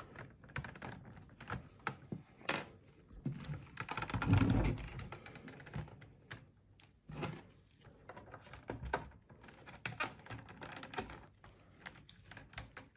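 Irregular plastic clicks, scrapes and taps as a pry tool works the snap-fit tabs of an APC battery cartridge's plastic case open, with a heavier thump about four seconds in as the cartridge is handled.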